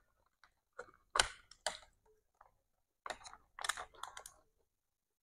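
Hands handling a cardboard food box and its contents, making short crackles and taps: a cluster about a second in and another from about three seconds in, then nothing.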